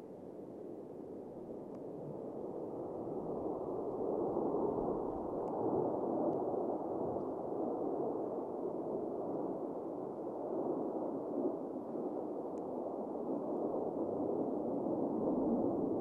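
Distant jet roar of four Blue Angels F/A-18 Super Hornets, twin-turbofan jets, flying in close formation; a steady rushing noise that grows louder over the first few seconds and then holds.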